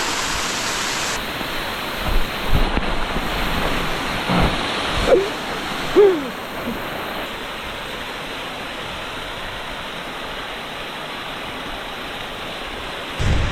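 A full-flowing waterfall rushing steadily, with a few brief louder sounds between about two and six seconds in.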